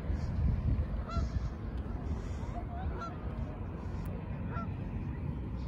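Geese honking: a few short calls a second or two apart, over a loud low rumble.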